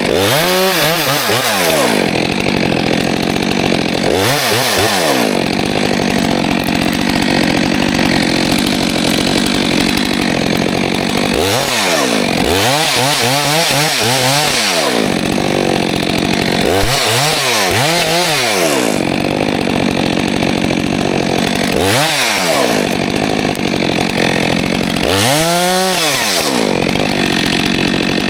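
Stihl 462C two-stroke chainsaw, fitted with an Egan Straight Shot aftermarket exhaust, cutting a log at full throttle. Several times its engine note rises and falls as the throttle is opened and eased between cuts.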